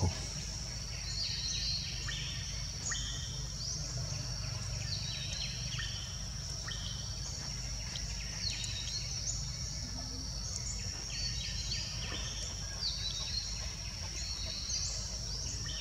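Forest ambience: a steady high-pitched insect drone, with many short, falling bird chirps scattered through it.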